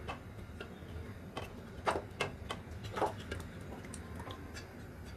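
Spatula scraping and knocking against the pressure cooker pot as cooked goat trotters in gravy are pushed out into a pan of liquid: a scatter of light clicks and knocks, the loudest about two and three seconds in.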